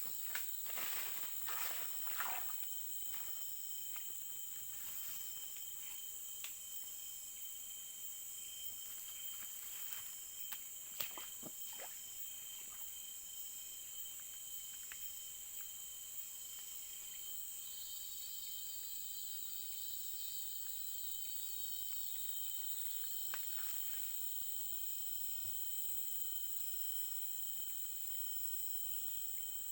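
Steady high-pitched drone of insects. A few footsteps or rustles are heard in the first couple of seconds and again about ten seconds in.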